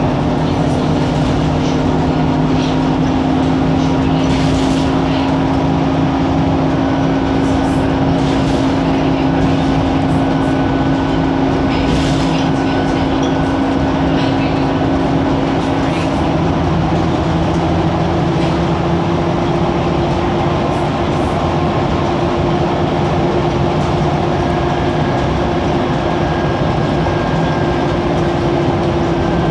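Diesel bus running, with a steady whine from its cooling fans and turbocharger over the engine note. The main whine steps up in pitch a little over halfway through.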